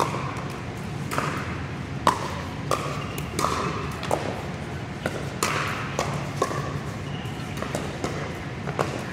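Pickleball rally: hard paddles popping a plastic pickleball back and forth, sharp hits about one every half second to second, echoing in a large indoor court hall.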